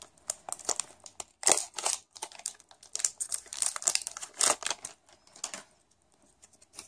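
Pokémon booster pack's foil wrapper crinkling and crackling as it is torn open and the cards are slid out, in a run of sharp crackles that stops about a second before the end.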